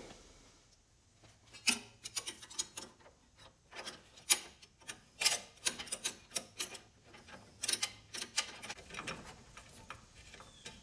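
Irregular sharp metallic clicks and ticks, some in quick little clusters, from hand tools and metal parts being handled while working among a compact tractor's hydraulic lines and fittings.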